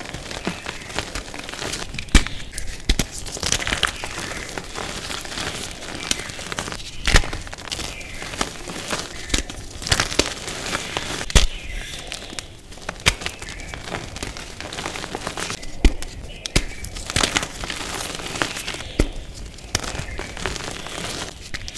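Reformed gym chalk crushed and crumbled between the fingers: dry, gritty crunching and crackling, with a few louder snaps as chunks break apart.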